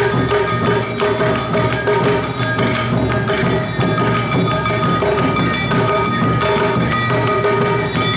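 Awa odori festival music from a narimono band: drums and metal kane hand gongs beating a fast, steady rhythm under held melodic tones such as bamboo flutes.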